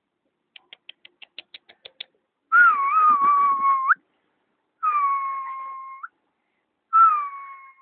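A run of about eight short, high chirps, then three long whistled notes. Each note lasts a second or more, slides gently down in pitch and flicks up at the very end.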